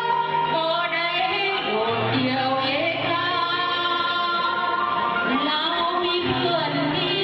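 A woman singing into a microphone with instrumental accompaniment, holding long notes that slide between pitches.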